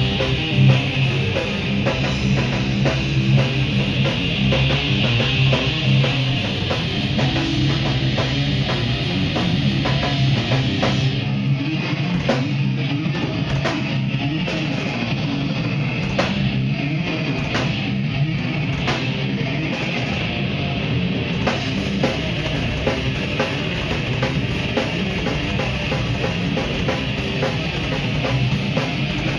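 Heavy metal band playing live: distorted electric guitars, bass guitar and drum kit. About eleven seconds in the low end thins out and sharp drum hits stand out, and the full band sound comes back about ten seconds later.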